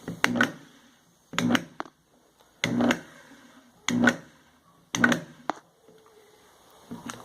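AWT plunge router set to low speed, giving the strange noise it is faulty with: a short loud clunking burst about once every second and a quarter, with quiet gaps between.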